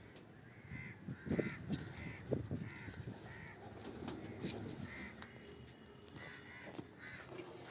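Crows cawing over and over, with a few knocks from handling nearby.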